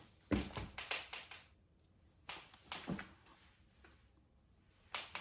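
Faint handling noise: a few soft taps and knocks in two or three clusters, as over-ear headphones are settled on the head and the wearer moves about.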